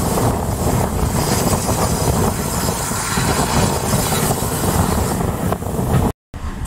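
Running noise of a steam-hauled train's passenger coaches moving along the track, heard at an open carriage window with wind on the microphone. The sound cuts out abruptly about six seconds in.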